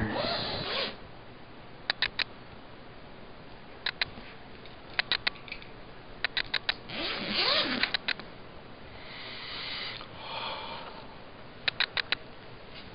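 Handling a black laptop bag: several quick clusters of two to four sharp clicks, like clasps or buckles, and a few short stretches of rustling and scraping as the bag is worked open.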